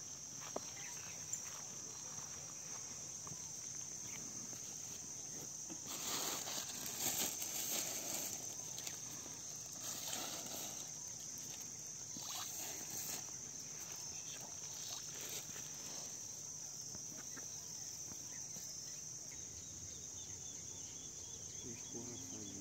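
Insects chirring outdoors in one steady high-pitched drone, with several seconds of irregular rustling or splashing noise in the middle.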